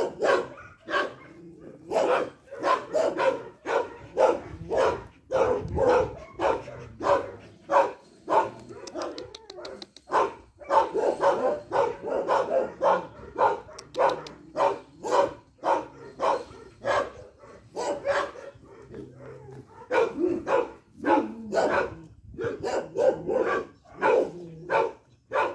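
A dog barking over and over in a fast, even run of about two or three barks a second, with a couple of short lulls.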